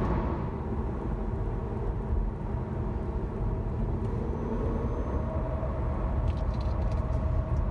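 Steady road and tyre noise inside the cabin of a moving Hyundai Ioniq Electric, a low rumble with no engine sound. A few faint clicks come near the end.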